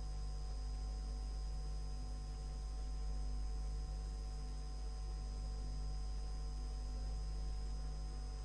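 Steady low electrical hum with a faint even hiss, unchanging throughout: the background noise floor of an old recording.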